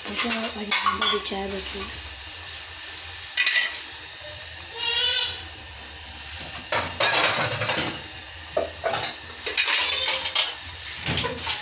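Tea (chai) simmering in a steel saucepan on a gas burner, a steady bubbling hiss, with a spoon stirring and knocking against the pan several times.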